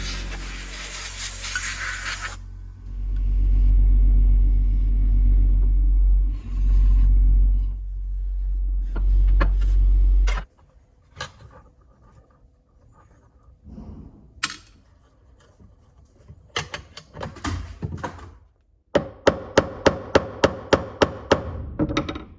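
Workshop sounds during a tool restoration: a loud hiss that stops about two seconds in, then a loud low hum for several seconds that cuts off, scattered clicks and knocks, and near the end a run of sharp regular taps, about four a second.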